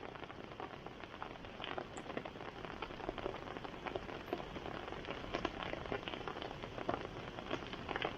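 Rain falling steadily, with many separate drops striking a nearby surface in quick, irregular ticks.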